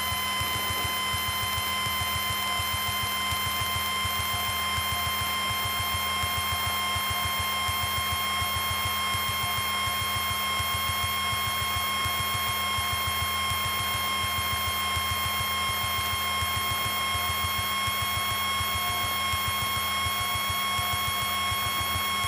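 Piper Tomahawk's four-cylinder Lycoming engine running at high power during the takeoff, as heard in the cockpit, with a rapid low pulsing. A steady high whine sits over the engine and rises slightly in pitch.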